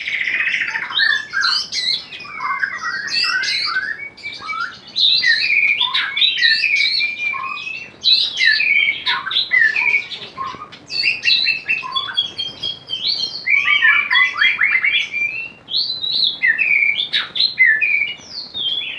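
A songbird singing a long, varied song of rapid chirps, slurred whistles and trills, phrase after phrase with short pauses between them.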